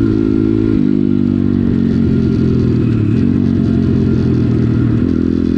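Kayo pit bike's single-cylinder engine running under way, loud and continuous, its pitch shifting sharply about a second in and again near the end.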